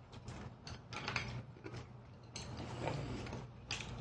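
A person slurping and chewing noodles close to the microphone: irregular wet clicks and smacks, with one longer slurp from about halfway to near the end.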